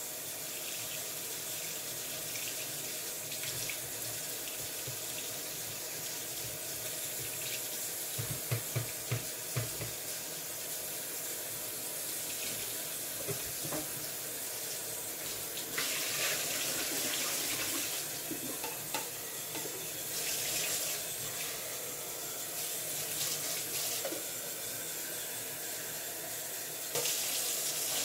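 Water running from a sink tap while a straw water bottle is washed and rinsed. The flow gets louder and splashier about halfway through and again near the end, with a few low knocks about a third of the way in.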